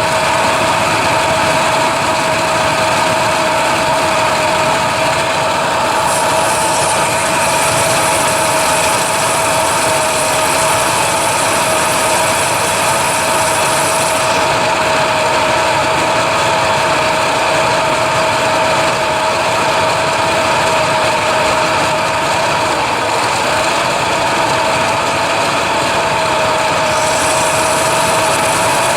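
A motor running steadily with a constant whine over a hiss, unbroken throughout.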